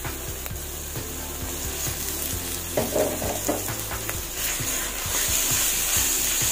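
Onions and garlic sizzling in a frying pan. Ground pork goes in about halfway and is stirred with a spatula, and the sizzling grows louder near the end.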